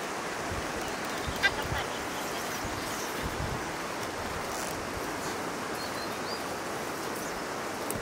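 Steady rushing outdoor background noise, with one short sharp sound about a second and a half in and a few faint bird chirps later on.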